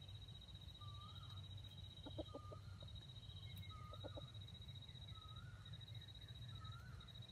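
Red junglefowl rooster clucking softly in two short bursts of a few quick clucks, about two seconds in and again about four seconds in. A steady high-pitched whine and a short call repeating about once a second run underneath.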